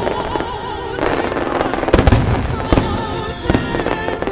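Fireworks finale: aerial shells bursting with sharp bangs, several close together about two seconds in, over music with a singing voice.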